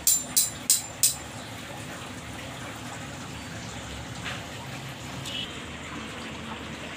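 A quick run of sharp clicks, about three a second, stops a little over a second in. A steady hiss follows.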